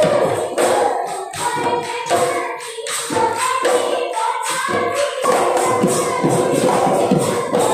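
Live Assamese Husori Bihu music: a group of voices singing over dhol drums, with sharp beats about twice a second.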